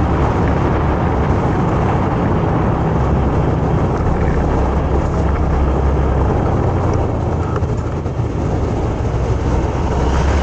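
Motorcycle riding at a steady speed: wind rushing over the microphone over a low, steady engine and road rumble.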